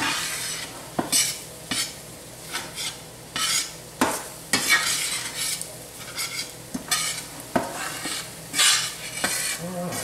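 A slotted metal spatula scraping and stirring through crumbled sausage in a stainless steel skillet, in irregular strokes about once a second with a few sharp metal clicks, as the bacon-grease-and-flour roux sizzles underneath.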